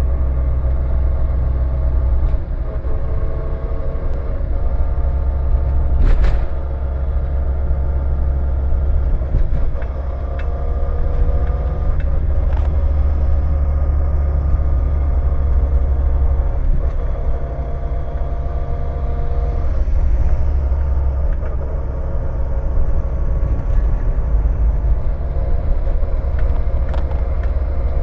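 Renault Scenic 2.0 8V manual gearbox growling: a loud low rumble with a gear whine whose pitch drifts up and down a little, and a sharp click about six seconds in. The noise began after a broken tripod joint dropped its rollers into the gearbox, and it remains after the pinion was replaced but the ring gear was not.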